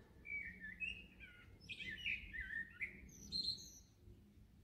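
Songbird singing faintly: a run of short chirping and warbling phrases that stops about three and a half seconds in.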